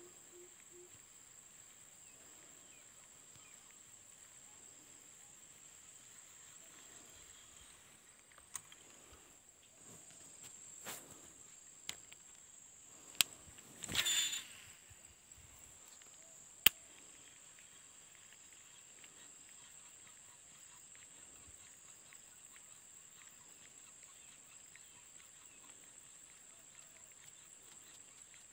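Steady high-pitched drone of insects, with a few sharp clicks and a short burst of noise around the middle.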